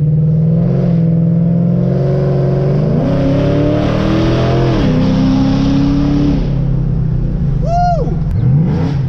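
Ford Mustang GT V8 with long-tube headers, an X-pipe and Flowmaster axle-back mufflers, running loud while driving, heard from inside the car. The engine revs up about three seconds in, holds, then eases off after about six seconds. A brief high chirp, rising then falling, comes near the end.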